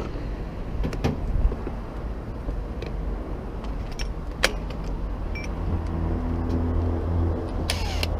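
Clicks and knocks of a cordless drill and drill bit being handled and the bit fitted into the drill's chuck. A short dense burst of clicking near the end, as the chuck is tightened. A steady low mechanical hum sets in a little past halfway.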